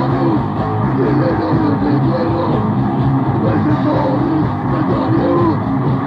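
Grindcore from a lo-fi 1987 demo tape: distorted guitar and drums played fast in a loud, dense wall of noise.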